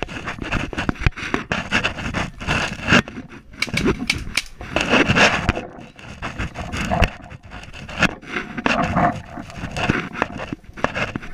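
Branches, twigs and dry leaves scraping and rustling against a hand-held action camera as it is pushed through dense brush, with many short clicks and knocks of handling noise.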